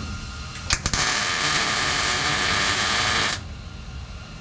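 MIG welder laying a tack weld on 18-gauge sheet steel: a couple of sharp clicks as the arc strikes, then about two and a half seconds of steady arc crackle that cuts off suddenly.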